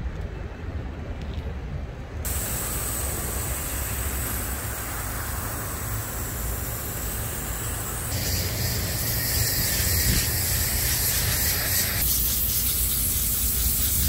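Water spraying from a nozzle onto air-conditioner coil fins: a steady hiss that starts abruptly about two seconds in and changes character suddenly twice, over a low rumble.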